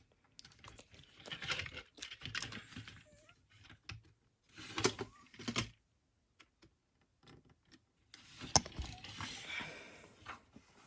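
Small plastic toy parts being handled and fitted together: scattered light clicks and rustling, with one sharper click near the end.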